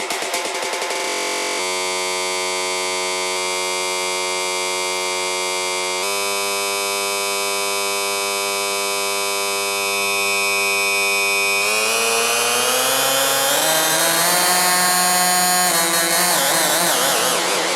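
A loud, buzzy electronic tone that holds one steady pitch for about ten seconds. It then slides upward and wobbles in pitch near the end.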